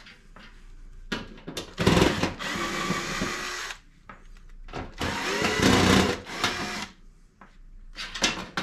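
Cordless drill/driver backing screws out of a sheet-metal range hood panel, in two runs of about two seconds each, with a shorter burst near the end.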